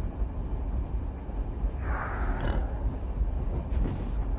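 Steady low rumble of a moving train from an animated film's soundtrack. A brief louder noise about two seconds in and a fainter one shortly before the end.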